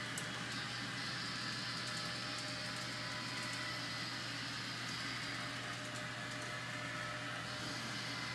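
Model trains running on a layout: a steady whir of small locomotive motors and wheels on the track, with a higher whine that swells in about half a second in, fades past the middle and comes back near the end, and a few faint ticks.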